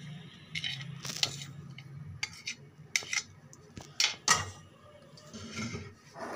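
Dishes clinking and scraping: a white plate knocked and scraped against a glass bowl as chopped onion and herbs are tipped into it, a handful of sharp clinks a second or so apart.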